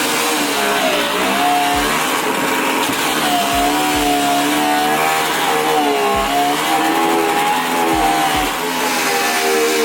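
Background hip-hop music in an instrumental stretch: deep bass hits under a wavering, gliding synth melody.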